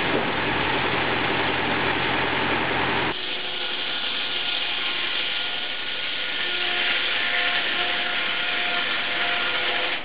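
Tractor-driven rack saw running, its circular blade cutting Norway spruce along with the tractor engine's drone. About three seconds in the sound drops suddenly, and a quieter steady run with a faint whine carries on.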